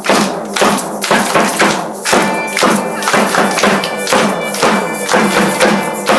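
Drum beating a steady rhythm with egg shakers rattling along, a few strikes a second; a held note joins in about two seconds in.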